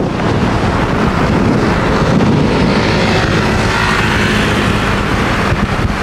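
Steady engine and road rumble of a moving car heard from inside the cabin, with an even hiss of air and tyre noise over it.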